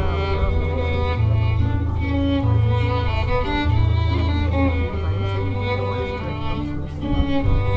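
Fiddle and acoustic guitar playing a waltz together.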